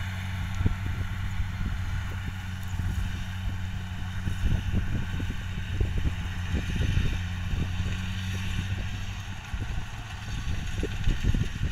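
Steady, even diesel engine drone of a rice combine harvester working in the field, with wind buffeting the microphone in irregular low thumps.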